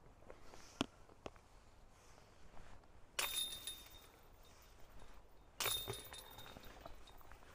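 A few footsteps on wood-chip ground, then two sudden harsh rustling bursts a couple of seconds apart, each about a second long, as a disc golfer sets up and putts.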